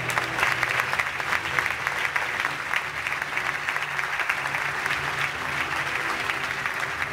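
Audience applauding, many hands clapping at an even density.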